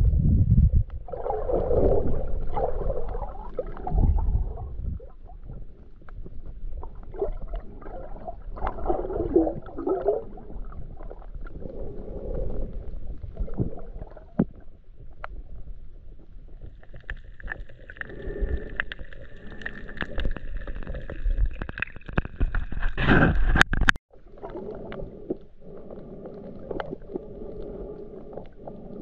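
Underwater sound from a submerged GoPro: muffled surging and bubbling of moving water, with scattered small clicks. Past the middle a steady high whine made of several tones joins for several seconds, then cuts off suddenly.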